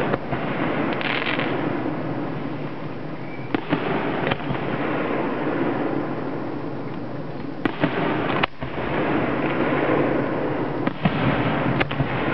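Aerial fireworks going off: sharp bangs every few seconds, several of them in pairs less than a second apart, over a steady background noise.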